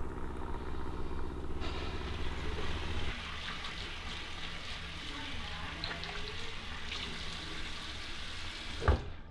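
A low, steady drone for the first three seconds, then water running from a bathroom sink tap as hands are washed under it, with a single loud knock near the end.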